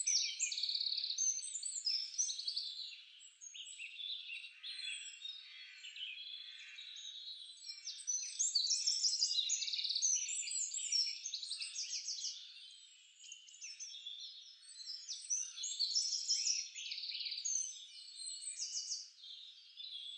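Several small birds chirping and trilling at once, a thick chorus of quick high notes with no low end, rising and falling in loudness.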